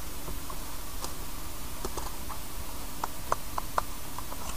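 Small scattered clicks and taps of an instrument gauge's meter movement and housing being handled and fitted together by hand, with a few sharper clicks a little past three seconds in, over a steady hiss.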